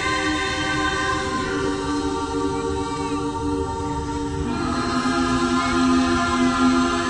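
Live choir singing long, sustained chords without words. The harmony shifts to new held notes about a second in and again past the middle.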